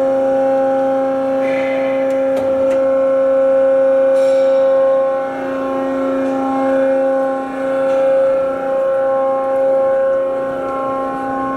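Hyd-Mech tilt-frame vertical bandsaw running at a steady speed, a constant pitched hum and whine from its drive and blade.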